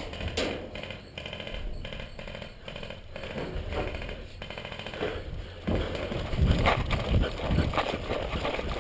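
Airsoft electric guns firing rapid full-auto bursts, with heavier irregular thuds joining in the second half.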